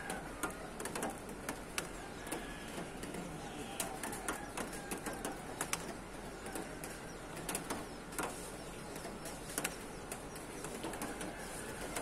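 Birds calling from the trees, with many short, sharp clicks scattered throughout over a steady background hum.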